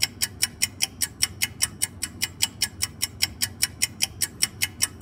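Rapid clock ticking, about six ticks a second, from a countdown timer sound effect marking the five seconds given to solve the problem. It stops suddenly at the end.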